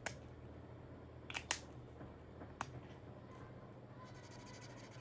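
A few faint clicks and taps of small items being handled on a desk, over a low steady hum.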